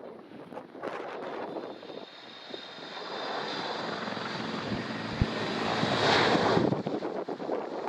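Jet engines of a landing ANA Boeing 767-300ER, a roar with a high whine that grows louder to a peak about six seconds in, then falls away sharply.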